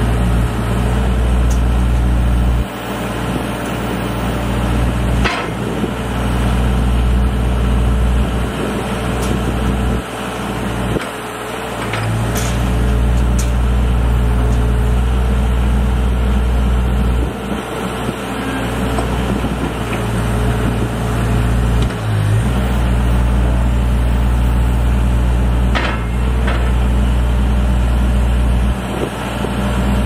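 2022 CAT 216B3 skid steer's diesel engine running and working the loader hydraulics. Its low drone drops away and comes back several times as the load changes, with a few sharp knocks.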